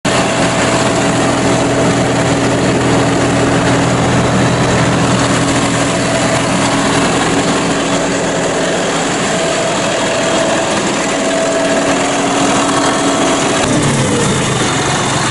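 John Deere 5075E tractor's three-cylinder diesel engine idling steadily, warmed up close to operating temperature; its note shifts slightly near the end.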